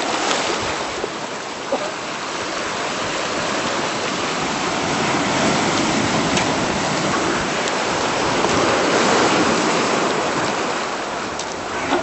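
Surf washing over rocks on the shoreline: a steady rush of water that swells to its loudest about three-quarters through, then eases.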